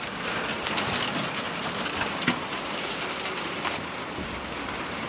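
Loose sawdust being shoveled by hand off a truck: a steady rustling hiss of sawdust sliding and spilling, with a few sharper scrapes of the shovel.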